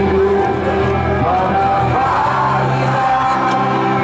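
A sung anthem with rock backing playing over the stadium loudspeakers, with no crowd singing along.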